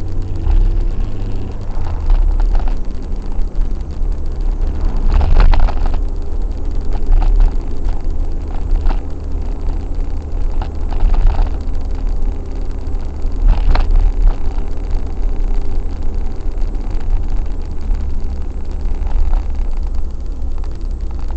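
Car driving, heard from inside the cabin: a steady low engine and road rumble. A few short knocks or rattles come through it, the clearest about five and a half seconds in and again near fourteen seconds.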